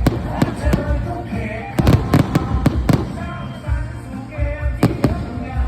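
Fireworks going off: a dozen or so sharp bangs at uneven intervals, several coming close together about two seconds in, over loud music with a steady beat.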